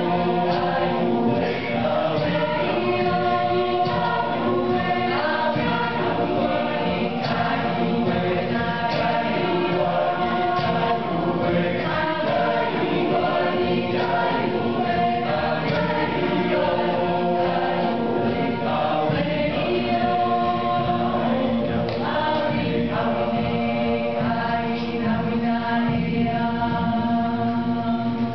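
Mixed choir of men's and women's voices singing in harmony.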